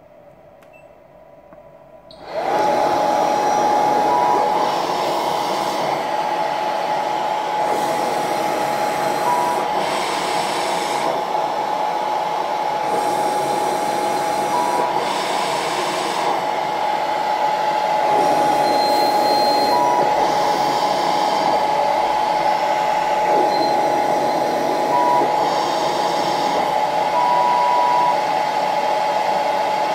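Cough Assist (mechanical insufflation-exsufflation) machine switching on about two seconds in and running: a steady blower tone with rushing air that swells and eases every few seconds as it pushes and pulls air, and short beeps now and then.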